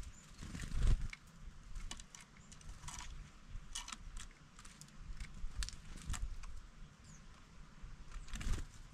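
Irregular sharp taps and clicks of a nuthatch and a blue tit pecking at food and moving on a wooden bird feeder, with a few dull thumps, the loudest about a second in.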